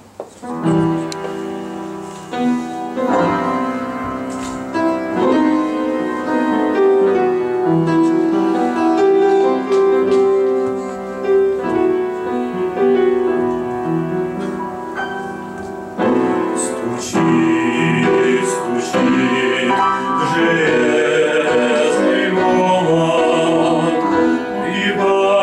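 Instrumental piano introduction to a Christian hymn, with a fuller, brighter accompaniment coming in about two-thirds of the way through.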